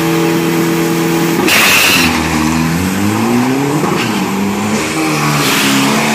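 Diesel pickup truck's engine held at high revs on the start line. About a second and a half in it launches with a loud burst of noise, then pulls away down the drag strip, its pitch rising and dropping several times as it runs through the gears.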